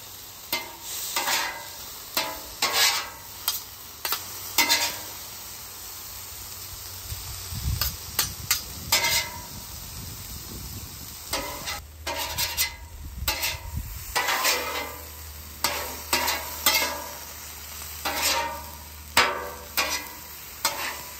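Metal spatulas scraping and clacking on a flat top griddle at irregular intervals as diced steak and vegetables are pushed together and mixed, over a steady sizzle from the low heat.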